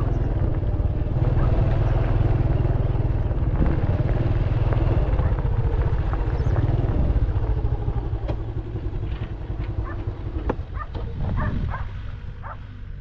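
An engine running steadily under a heavy low rumble. It dies away after about eight seconds, and scattered sharp clicks follow.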